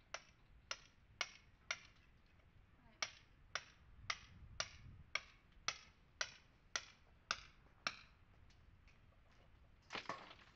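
Hammer striking a chisel to rake old mortar out of a stone wall: sharp taps about two a second, fourteen in all with a short pause after the fourth, then a brief rough scrape near the end.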